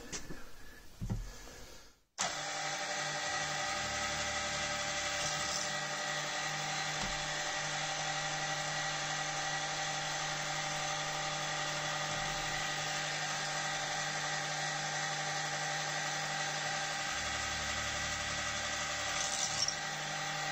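Old Arboga drill press running steadily, its motor and spindle giving an even whine with several fixed tones, while drilling holes in a small aluminium bar. A few light handling clicks come first, and the running sound starts about two seconds in.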